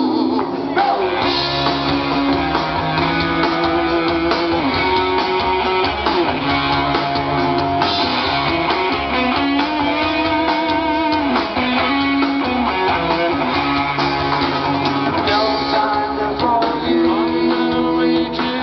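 Live rock band playing through a PA: electric guitars, bass and drums.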